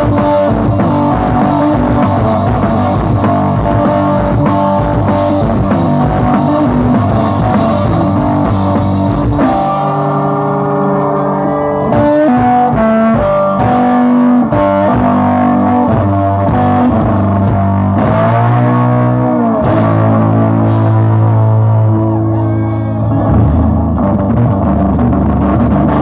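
A live punk blues rock band playing loudly: electric guitar riffs over a drum kit, with a guitar note bending up and down about two-thirds of the way through.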